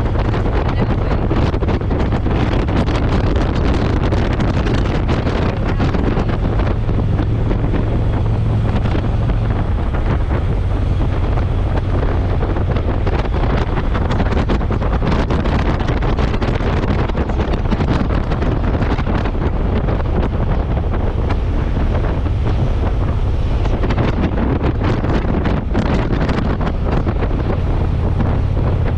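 Wind rushing over the microphone on a touring motorcycle cruising at highway speed, over the steady low drone of its engine.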